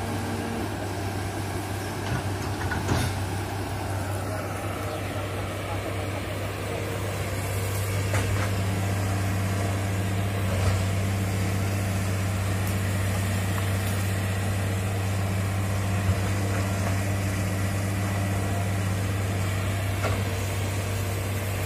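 Crawler excavator's diesel engine running steadily with a deep hum, working a little harder from about eight seconds in, with a few short knocks scattered through.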